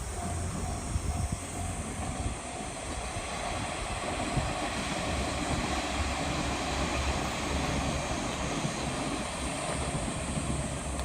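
A JR train running past a level crossing: a steady rumble and rush of wheels on rail, loudest in the middle. The crossing's warning bell clangs in a quick repeated beat at first, then is drowned by the train.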